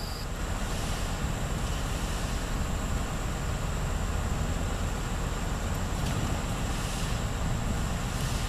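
Volvo L90F wheel loader's diesel engine running with a steady low rumble as the machine moves slowly.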